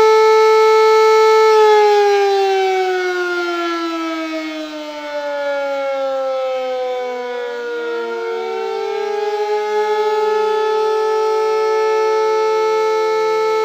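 Police siren sound effect. A steady tone slides slowly down in pitch starting about a second and a half in. Around the middle a second siren tone rises and levels off near the first one's starting pitch, while the first keeps falling lower.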